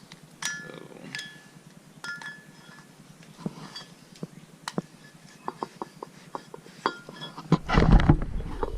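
Small metal parts and tools clinking while being handled: a few short ringing clinks, then a run of light clicks, then louder handling bumps and knocks near the end.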